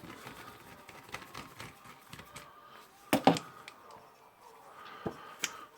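Small metal parts and hand tools clicking and knocking while a pneumatic rivet nut tool is taken apart, with a louder double knock about three seconds in and two sharper clicks near the end.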